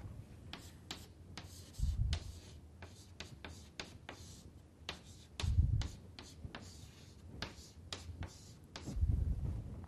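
Chalk writing on a chalkboard: quick taps and short scratching strokes as numbers are written. Three dull low thumps come in between, the loudest about halfway through.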